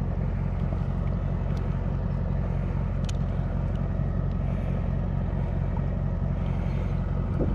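Steady low hum of an idling engine, with a few faint clicks.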